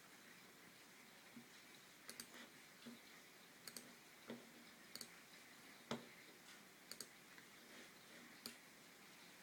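Apple Magic Mouse button clicking: about a dozen faint, scattered clicks, three of them quick double-clicks, the loudest about six seconds in.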